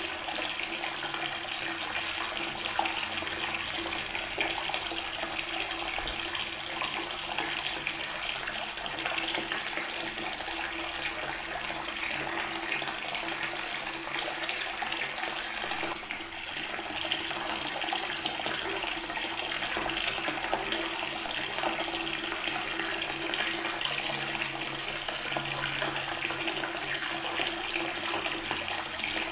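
Water running steadily from a tap and splashing onto stone.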